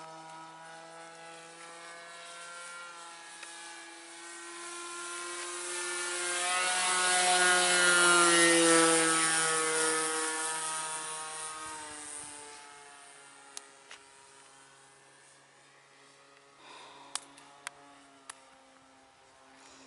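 Model airplane's O.S. GT15 single-cylinder two-stroke gas engine with a 14x8 wooden propeller buzzing past in flight. The buzz swells to its loudest about eight seconds in, drops in pitch as the plane passes, then fades. A few sharp clicks come near the end.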